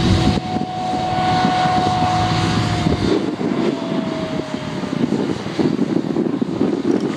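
Distant Claas Jaguar forage harvester and John Deere tractor running across the field: a steady diesel drone with a thin whine that drops slightly in pitch about three seconds in, after which a rougher low rumble carries on.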